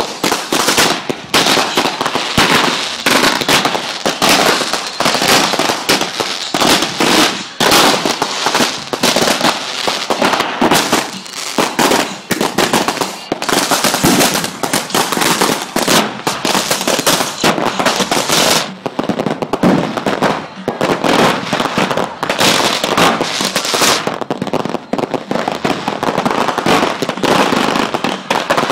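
A continuous barrage of fireworks: rapid, overlapping bangs and crackles with almost no gaps, easing only briefly a couple of times before picking straight back up.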